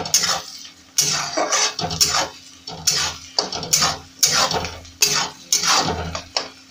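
A spatula stirring and scraping onions frying in oil in a metal kadhai, with repeated strokes against the pan about one or two times a second.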